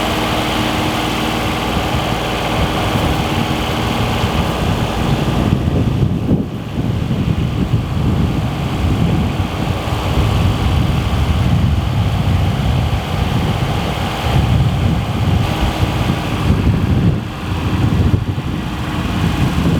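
A motor vehicle engine running, with a few steady tones for the first six seconds. A heavy, uneven low rumble that fits wind buffeting the microphone runs through it.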